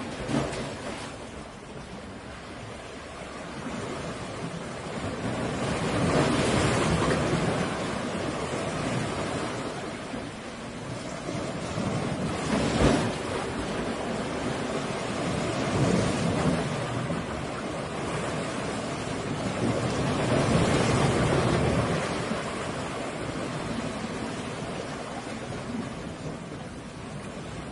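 Sea waves breaking against rocks and washing back, the surf swelling and easing in slow surges, with one sharp crash about halfway through.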